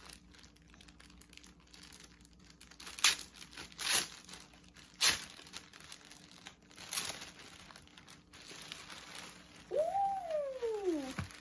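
Clear plastic garment bag being opened and handled, crinkling in several sharp bursts a second or so apart, loudest in the first half.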